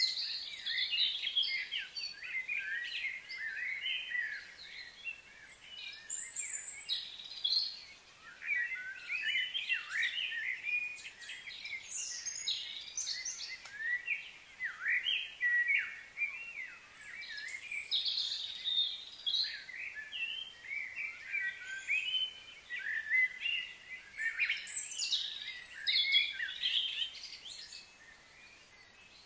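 Birds chirping and calling continuously, many short, varied overlapping calls with quick rises and falls in pitch, thinning out near the end.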